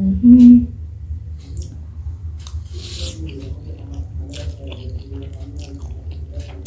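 Close-miked eating of spicy instant noodles: a brief hummed 'mm' at the start, then slurping and chewing with many small wet mouth clicks.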